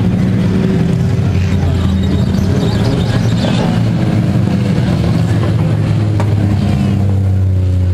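Engines of a pack of small stock race cars running together as they lap the track: a loud, steady drone.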